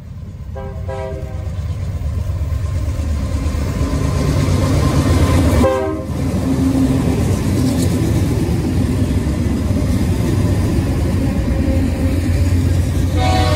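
A freight train's diesel locomotives pass close by with a loud, steady rumble that builds over the first few seconds. A multi-tone air horn sounds briefly about a second in, again just before six seconds in, and once more near the end.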